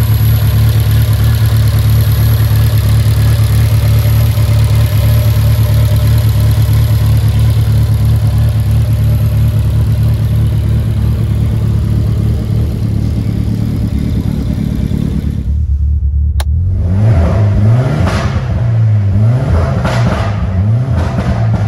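Ford Escort RS Cosworth's turbocharged four-cylinder engine, converted to a big turbo, idling steadily. About sixteen seconds in, it is revved repeatedly, the pitch rising and falling several times.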